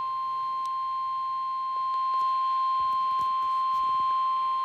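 NOAA Weather Radio warning alarm tone: a single steady tone near 1 kHz held without a break. It signals that an emergency warning message is about to be broadcast.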